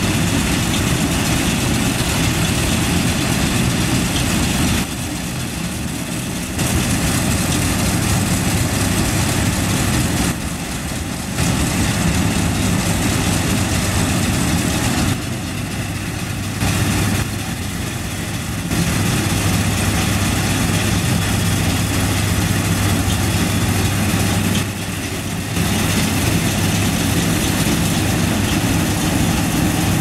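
Massey Ferguson 310 combine harvester running steadily while harvesting: a constant engine hum under the noise of the header and threshing machinery. The sound drops noticeably quieter for a second or so five times, then comes back.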